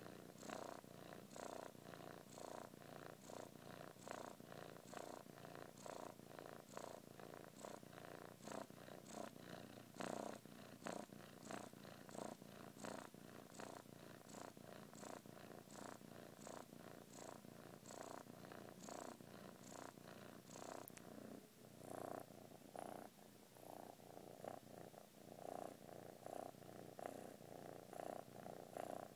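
Kitten purring quietly and steadily, the purr pulsing in an even rhythm about twice a second with its breathing.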